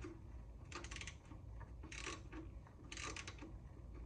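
Ratchet wrench clicking faintly in three short runs of quick clicks, about a second apart, as it works the oil drain plug on the oil pan.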